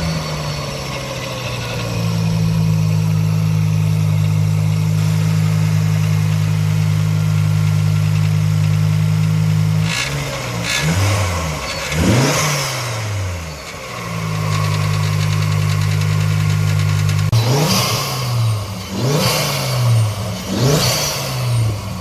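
Ford Focus ST Mk2's 2.5-litre turbocharged five-cylinder engine, fitted with an open Ram Air induction kit, idling steadily just after start-up, then blipped: a couple of revs midway and three quick revs near the end, each rising and falling back to idle.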